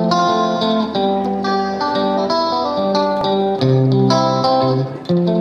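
Background music: a melody of plucked-string notes over lower held notes.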